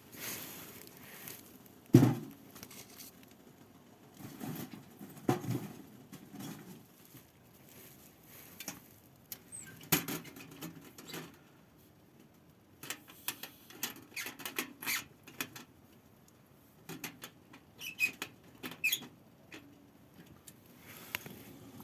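Irregular small knocks, clicks and scrapes of things being handled, with one sharp knock about two seconds in and a few short squeaks near the end.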